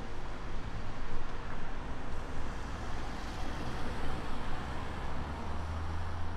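Road traffic on a main road: steady tyre and engine noise from passing cars, with a deep engine rumble swelling near the end as a vehicle goes by close.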